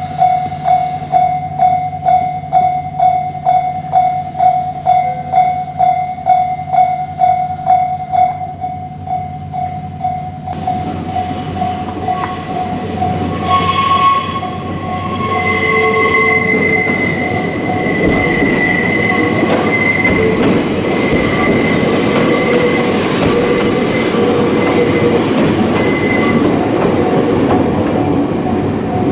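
A level-crossing alarm rings in even strikes about twice a second. About ten seconds in, a Hokuriku Railway train runs loudly over the crossing with its wheels squealing, and the alarm fades under the noise of the train.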